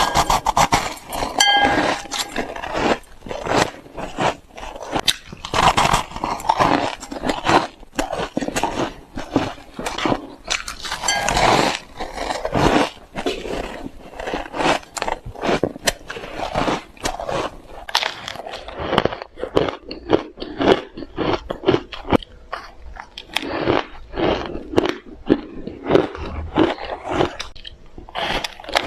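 Close-miked crunching and chewing of ice: a dense run of sharp, irregular cracks as the ice is bitten and ground between the teeth.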